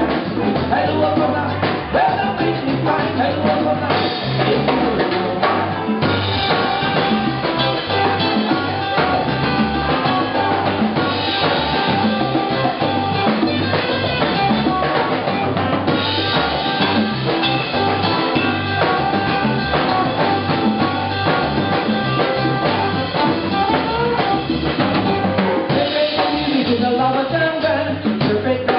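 Live band playing with a steady beat: ukulele, bass guitar, drum kit and congas.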